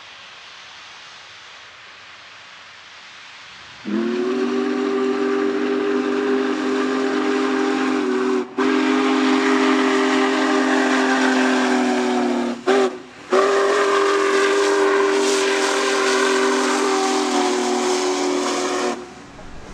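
Union Pacific Big Boy 4014's steam whistle sounding a chord in two long blasts, one short and one long: the grade-crossing signal. A steady hiss comes before it.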